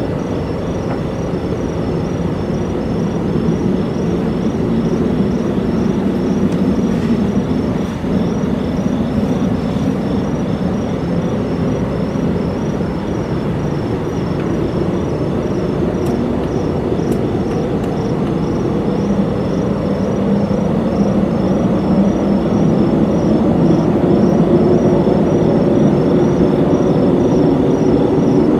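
A loud, steady low droning rumble that wavers in pitch and swells slightly toward the end: the unexplained noise that residents reported. High above it, insects chirp in a fast, even pulse.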